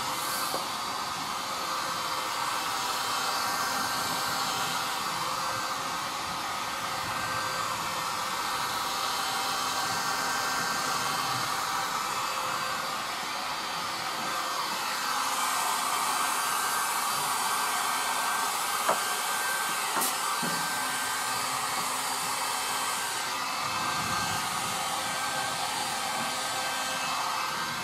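Electric heat gun (a 1500-watt dual-temperature model) running steadily, blowing hot air with a constant fan hum, warming the louver's edge so its tape sticks down.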